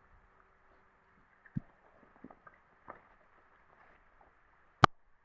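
Faint, muffled background with a dull thump about one and a half seconds in, a few light taps, and one sharp click near the end.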